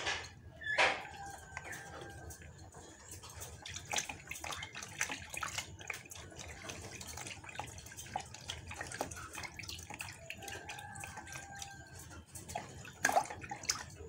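Water splashing and dripping in a plastic basin as a bird is held and soaked by hand, with irregular small splashes and a louder splash near the end.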